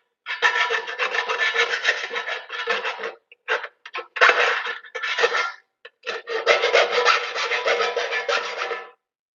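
Hand file rasping back and forth over the cut edges of a metal electrical box, deburring them smooth. The strokes come in quick runs broken by short pauses and stop about nine seconds in.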